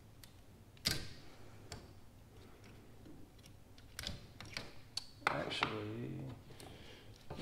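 Scattered sharp metal clicks and taps as lock ring pliers open the snap ring on a Bilstein 5100 shock body to move it up one perch groove. A short grunt-like vocal sound about five seconds in is the loudest part.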